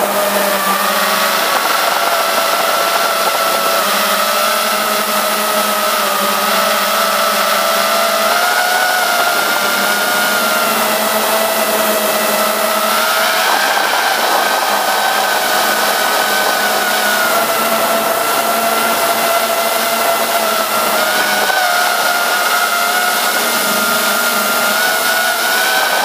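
FPV quadcopter's brushless motors and propellers whining steadily, the pitch drifting up and down with the throttle and stepping up about halfway through, over a constant rush of prop wash.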